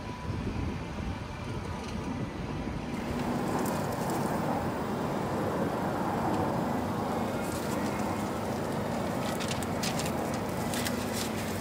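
Steady background hum and noise of a street food stall, with paper crackling from about two-thirds of the way through as a paper waffle wrapper is handled.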